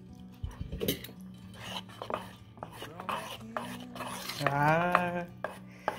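Metal spoon clinking and scraping against a stainless steel mixing bowl as milk is poured into pancake batter and stirred in. A short pitched vocal sound, rising then held, comes about four and a half seconds in.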